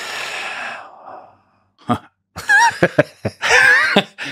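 A man lets out a long, breathy sigh, then laughs in short bursts with a wavering pitch.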